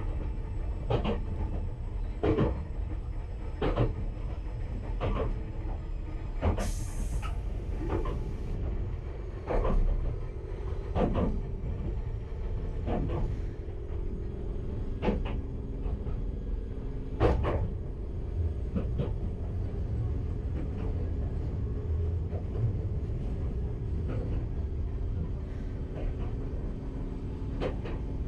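Enoden electric train running on the line: a steady low rumble with sharp wheel clicks over rail joints, about one every second and a half, spacing out in the second half. A short high hiss comes about seven seconds in.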